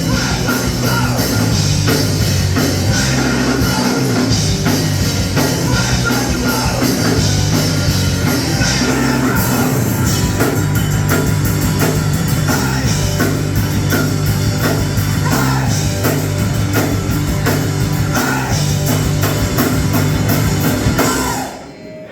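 Live rock band playing loud, with drum kit, bass and guitar, the full band cutting off abruptly near the end as the song finishes.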